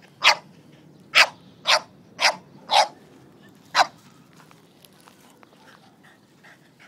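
French bulldog barking at a cat: six short, sharp barks in the first four seconds, then it stops.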